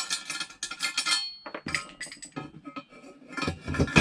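Steel engine-stand brackets and bolts clinking and clanking together as they are handled and fitted, with a flurry of sharp ringing clinks in the first second and a half and more near the end.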